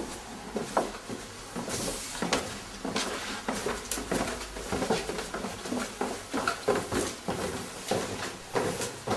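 Footsteps on old oak floorboards and stairs: irregular knocks and scuffs, several a second.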